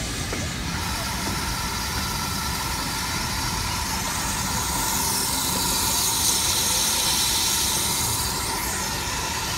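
Steam locomotive hissing steam: a continuous hiss with a faint steady ringing tone in it, swelling louder about five seconds in and easing off near the end.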